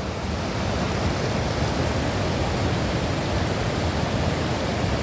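Waterfall roaring: a steady, loud rush of falling water.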